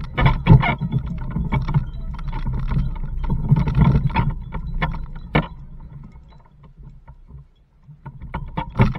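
Child bicycle trailer rolling over rough, grassy ground: a low rumble with frequent knocks and rattles from the frame and fittings, dying down to a quieter rumble after about six seconds.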